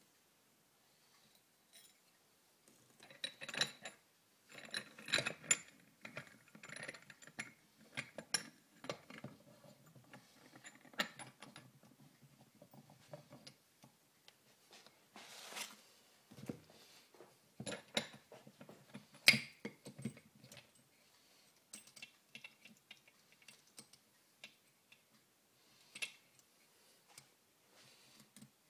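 Steel gears and shafts of a Harley-Davidson early Shovelhead four-speed gearbox clinking and clicking as they are fitted into the gearbox case by hand: an irregular metallic clatter, with the sharpest click about nineteen seconds in.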